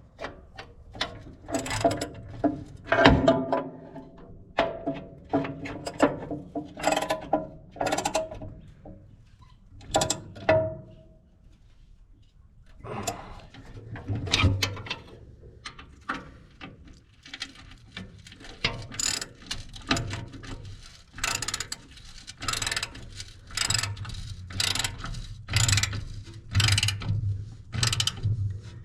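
Hand tools working the metal bolts of a wood chipper's belt tensioner: a run of sharp metallic clicks and clanks, some briefly ringing, with a pause near the middle before the clicking picks up again at an even pace.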